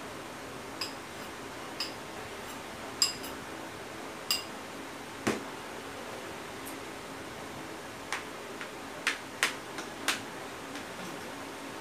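Spoon and fork clinking against a bowl and plate while eating: about ten light, short clinks spread out, several close together near the end, over a steady background hiss.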